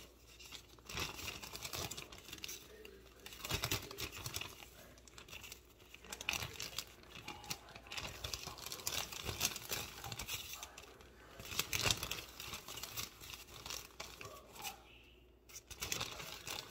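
Irregular crinkling and tearing handling noises, coming in clusters of short crackles.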